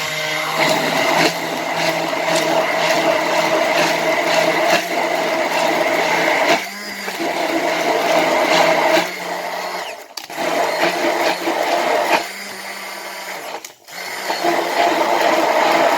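Electric hand mixer running, beating eggs and sugar in a bowl until pale and foamy. Its steady motor hum dips a few times and almost stops briefly about ten seconds in and again near fourteen seconds.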